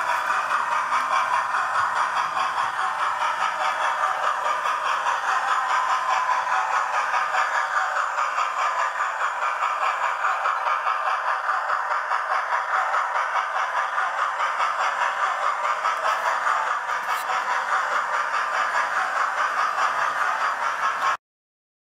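Model railway locomotive running on the layout's track: a steady mechanical running sound with a fast, even pulse. It cuts off abruptly near the end.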